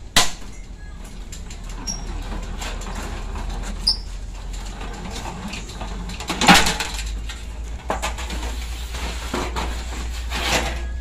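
Thin galvanized sheet metal being curled through a hand-operated slip-roll machine, rattling and flexing as it is worked, with scattered metallic knocks. The loudest clank is about six and a half seconds in.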